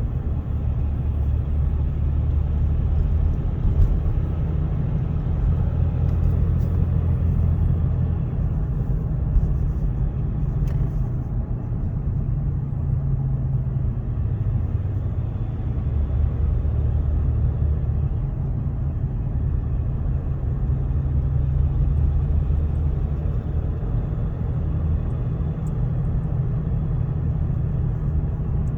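Cab noise of a 2015 Ram 1500 EcoDiesel pickup on the move: a steady low rumble from the road and drivetrain that swells and eases every few seconds. Under it is the rattling buzz of a loose steering-wheel horn button, which goes quiet when light pressure is put on the side of the button.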